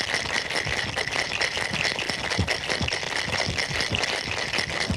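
Ice rattling in a cocktail shaker as a drink is shaken by hand to a slow ten count, a continuous fast rattle of ice striking the shaker walls.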